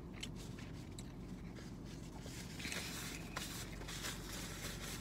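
Faint rustling and small clicks of food and its wrapper being handled, with a brief louder rustle a little under three seconds in, over a steady low hum.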